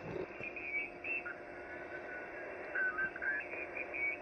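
Icom HF transceiver's receiver on the 40 m band: steady band-noise hiss with nothing above a sharp ceiling of its voice filter, and a few short tone snippets of faint or mistuned signals at changing pitches.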